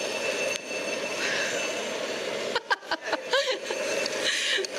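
Electric stand mixer motor running steadily while flour is added to whipped batter.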